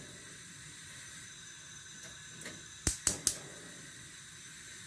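Gas hob's spark igniter clicking: a faint pair of ticks, then a quick run of three sharp clicks about five a second, just under three seconds in, over a steady faint hiss.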